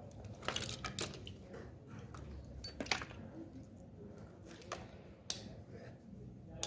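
Scattered light clicks and taps from handling an e-bike battery pack, about half a dozen over a few seconds.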